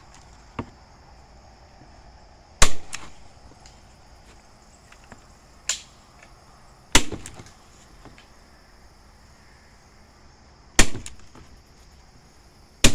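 HART hand staple gun driving staples into a wooden window frame: single sharp snaps a couple of seconds apart, four loud and two softer.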